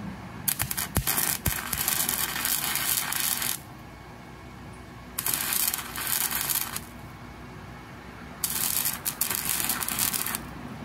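Electric arc welding on the steel frame of a hand truck: the arc crackles and sputters in three bursts, about three seconds, a second and a half, and two seconds long, with a few sharp snaps as the first arc is struck.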